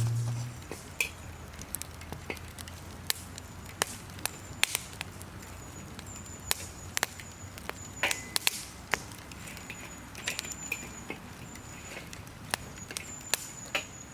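Wood fire crackling in a fire pit, with irregular sharp pops every second or so.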